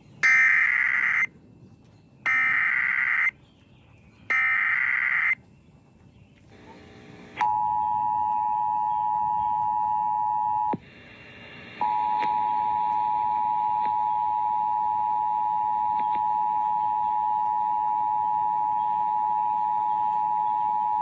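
Emergency Alert System SAME header: three short bursts of screeching digital data tones about two seconds apart, followed by the two-tone attention signal, a steady dual-pitched beep that breaks off for about a second and then resumes and holds. It is the signal that an emergency alert is being broadcast.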